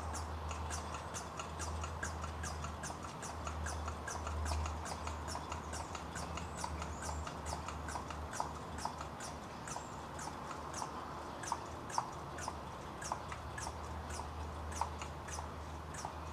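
A hand vacuum brake bleeder draws fluid and air out of an open brake bleeder with a steady run of small clicks, about three a second, over a low hum. The line still has lots of air in it.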